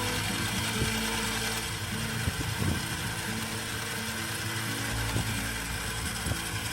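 CJ0618 mini lathe running, its motor and gear train humming steadily with a few light clicks.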